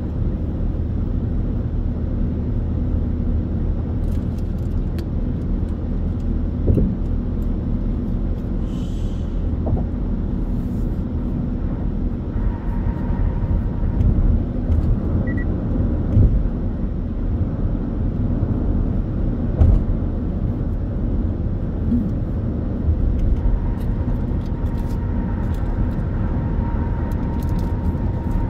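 Steady in-cabin road noise of a car cruising on an expressway: a low rumble of tyres on the pavement and engine, with a few light knocks.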